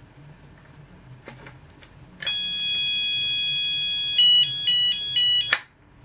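Klaxon Boxalarm callpoint's built-in electronic sounder going off after a click: a loud, shrill steady tone for about two seconds, then switching rapidly back and forth between two tones, and cutting off abruptly with a click.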